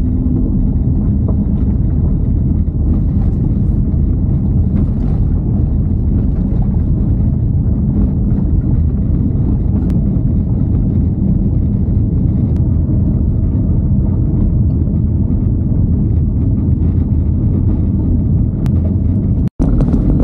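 A car driving on a gravel road, heard from inside the cabin: a steady, loud low rumble of tyres on loose stones together with the engine. The sound cuts out for an instant near the end.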